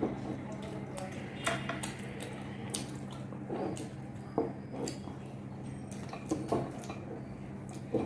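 Close-up eating sounds: fingers tearing flaky lachcha paratha and dipping pieces into chilli chicken gravy on glass plates, with chewing and short clicks of hands and food against the glass every second or so. A steady low hum runs underneath.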